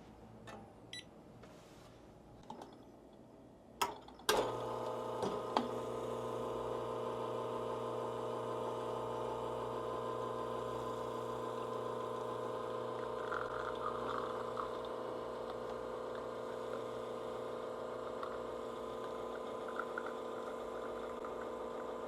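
Espresso machine pump running steadily through a shot extraction, a constant hum that starts about four seconds in after a few small clicks.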